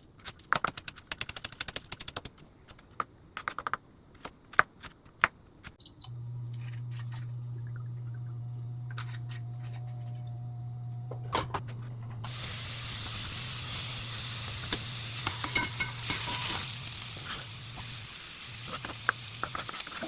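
Kitchen clinks and taps, then a low steady hum that switches on about six seconds in; from about twelve seconds food sizzles in a hot frying pan, with occasional utensil clicks.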